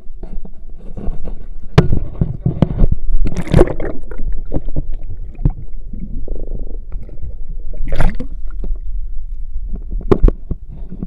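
Irregular knocks, thumps and scrapes of handling on the wooden deck of an open fishing boat, over a steady low rumble, with louder scraping bursts about three and a half seconds in and again about eight seconds in.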